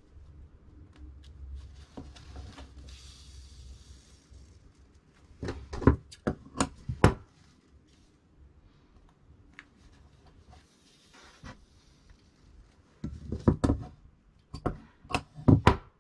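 Hands working thread through layers of jacket fabric for tailor's tacks: soft rubbing of thread and cloth, with two clusters of sharp clicks, about six seconds in and again near the end.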